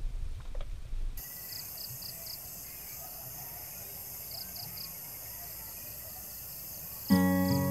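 Outdoor insect ambience: a steady high hiss with short pulsed chirps in groups of about four, after a low rumble in the first second. Strummed acoustic guitar music comes in loudly near the end.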